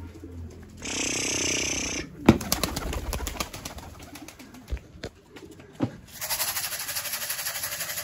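Racing pigeons cooing, with two stretches of hissing noise, the later one with a fast flutter, and a few sharp clicks.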